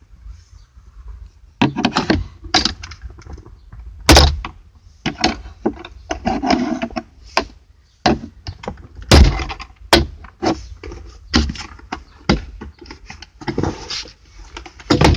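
Plastic clicks, scrapes and knocks as a glove box stop is pried out and the glove box is worked free, with heavier thunks about four and nine seconds in.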